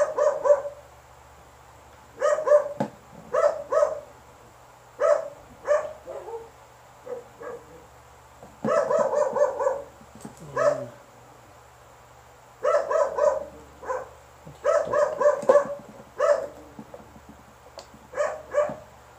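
A dog barking over and over, in short volleys of two or three barks with pauses of a second or two between them.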